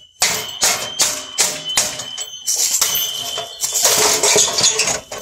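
A star-tined hand gardening tool beating an old grill: a rapid series of sharp metal-on-metal blows, about three to four a second, running together into a continuous clatter in the second half, with a thin high ring under it.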